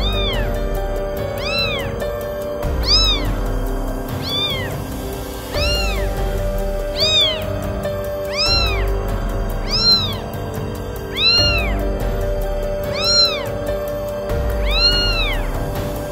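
Cat meowing over and over, about one meow every second and a half, each call rising then falling in pitch, over background music with steady held notes.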